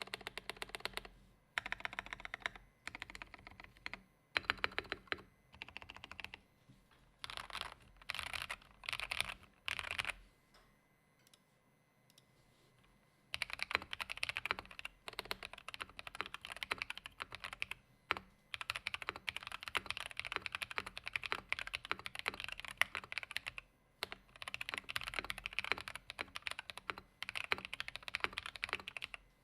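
Typing on a custom Anne Pro 2 mechanical keyboard with lubed Akko Orange switches, tape-modded and with foam in the case. Short bursts of keystrokes for the first ten seconds, a pause of about three seconds, then steady continuous typing.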